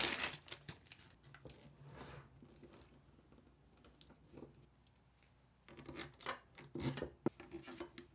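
Scattered light clicks, taps and rustles of small computer hardware being handled, with a few sharper clicks near the end.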